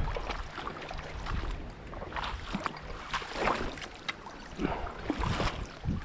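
Creek water splashing and sloshing in short, irregular bursts.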